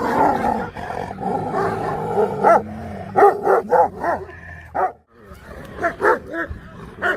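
Alabai (Central Asian Shepherd Dog) growling and barking: a couple of seconds of continuous rough growling, then runs of quick barks, with a brief break about five seconds in.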